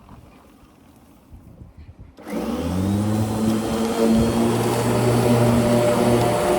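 Lawn mower motor starting a little over two seconds in, quickly rising in pitch to a steady, loud hum.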